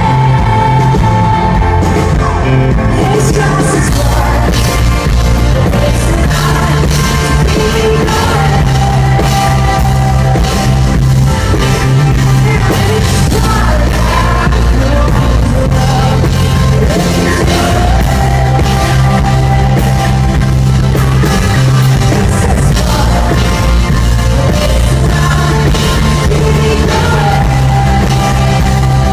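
Live rock band playing, with a woman singing long held notes over electric keyboard and guitar, loud and steady throughout.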